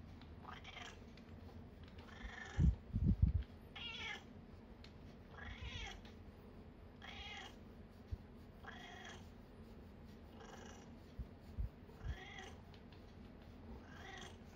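A cat purring softly while being massaged with a spiky-roller massage tool, a scratchy stroke through its fur about every second and a half. A few dull bumps come about three seconds in.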